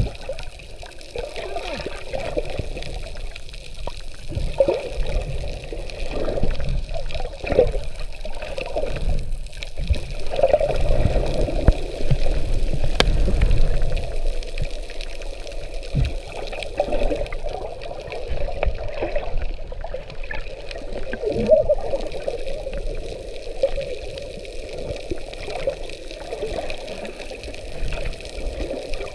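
Water sloshing and bubbling around an action camera held underwater near the surface, in irregular swells.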